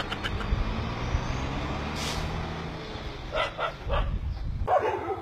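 A dog barking a few times over a low steady rumble. Near the end, quicker barks start in a rapid series.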